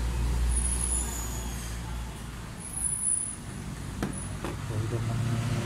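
A low steady rumble, with two sharp clicks about four seconds in as the metal clutch master cylinder body is handled on a steel workbench.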